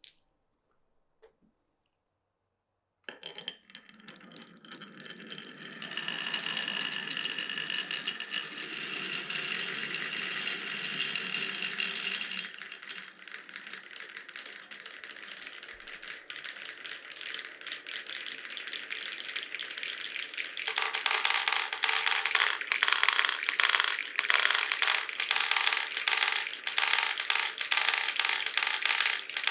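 Many glass marbles rolling and clattering down a wooden marble run, a dense stream of small clicks over a steady rumble. It starts about three seconds in after a single click and a short silence, eases off about halfway, and grows loudest and sharpest in the last third.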